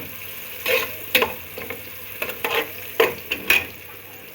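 Onions frying in hot oil in a pot, sizzling steadily, while a spoon scrapes and knocks against the pot in a quick run of strokes through the middle as they are stirred.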